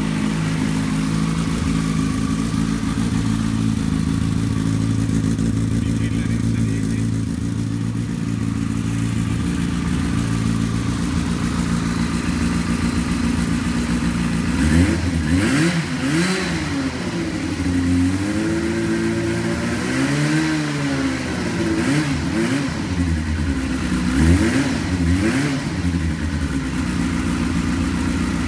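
Yamaha FZ6 S2's inline-four engine running through a LeoVince LV One Evo 2 slip-on exhaust with the catalytic converter removed, idling steadily just after a cold start. About halfway through it is revved in a string of throttle blips, the pitch rising and falling each time, with one longer rev near the middle of that run.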